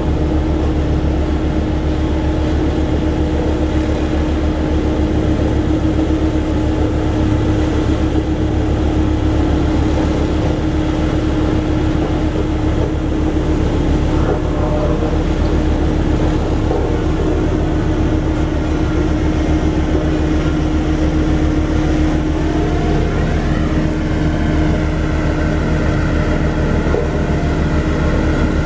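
Bomag BW 211D road roller's diesel engine running steadily, a constant loud hum. About three quarters of the way through, a rising whine is heard over it.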